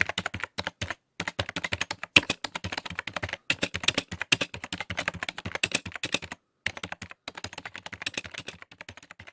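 Rapid computer-keyboard typing clicks, stopping briefly about a second in and twice more along the way.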